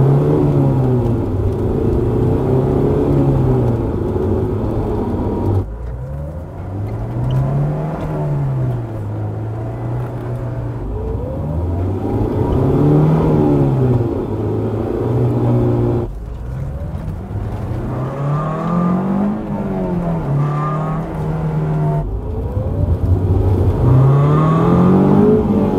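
Honda S2000's F22 four-cylinder engine heard from inside the cabin as the car drives: the engine note climbs and falls several times as it pulls away and shifts through the manual gearbox, with brief drops in level about 6, 16 and 22 seconds in.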